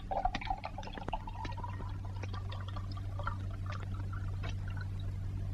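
Liquid pouring and trickling into a vessel, with scattered small clicks and knocks, over a steady low hum.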